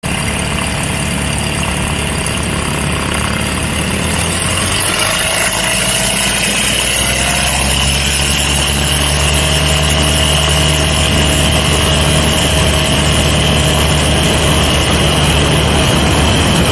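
Light aircraft's piston engine running on the ground, heard close up from the wing. About six seconds in it picks up in pitch and then holds a steady, higher run.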